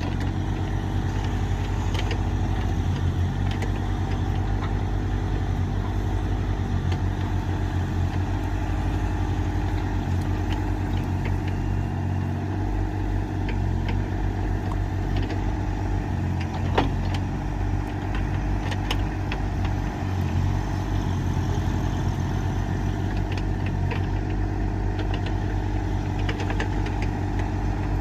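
Excavator's diesel engine running steadily, with a few light knocks and one sharper clank about seventeen seconds in.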